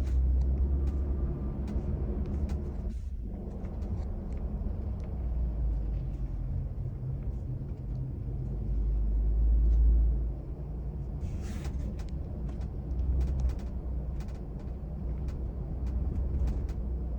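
Steady road rumble inside a moving Lexus GX 550, with irregular light rattling clicks from the rear D-pillar area. The rattle is the complaint itself: a loose trim or fitting that rattles at all speeds.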